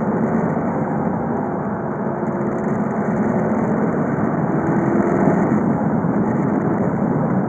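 VW Golf V 2.0 TDI (BKD) turbodiesel four-cylinder running while the car is driven, a steady engine and road noise that grows a little louder about five seconds in.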